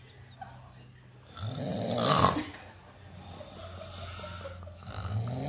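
A sleeping person snoring: one long snore swells to a loud peak between about one and two and a half seconds in, and the next snore begins near the end.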